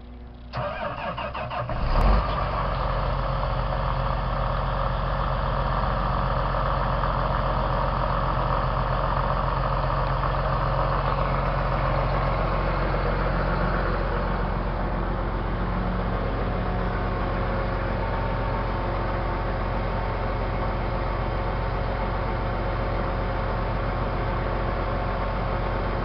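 2010 John Deere 8270R tractor's 9.0-litre six-cylinder diesel cranked by the starter for about a second and a half, catching about two seconds in, then idling steadily.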